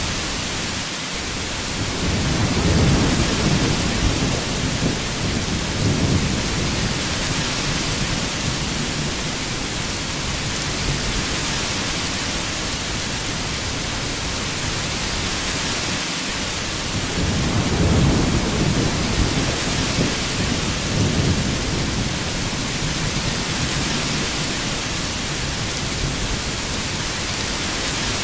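Heavy rain falling in a steady hiss, with two low rolls of thunder: one rumbling for several seconds starting about two seconds in, and another about two-thirds of the way through.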